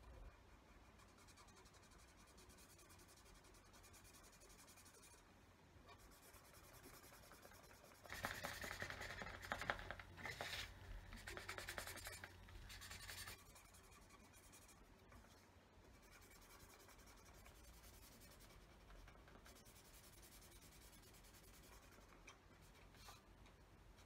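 Pen colouring in on paper: quick scratchy back-and-forth strokes for about five seconds, beginning about a third of the way in, with only faint scratching otherwise.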